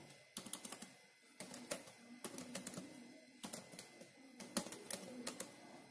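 Typing on a computer keyboard: faint keystroke clicks in short runs with brief pauses between them.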